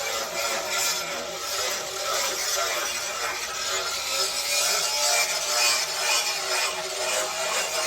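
An abrasive tool grinding on steel: a continuous gritty rasp that swells and dips in loudness.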